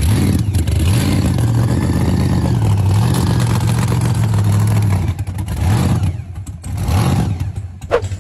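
Supercharged 6-litre Chevrolet big-block V8 revving: the pitch climbs and is held high for a couple of seconds, drops, then comes back in a few shorter blips, with a sharp break near the end.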